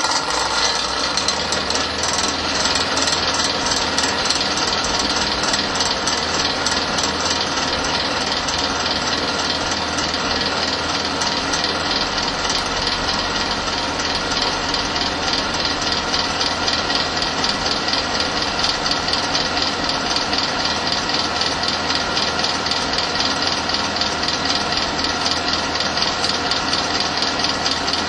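A fan running steadily: an even whir of moving air with a fine, rapid flutter.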